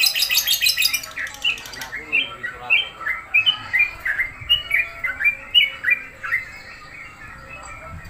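Caged yellow-vented bulbul (trucukan) singing: a loud, fast rattle in the first two seconds, then a run of short chirping notes, about two a second, that die away near the end.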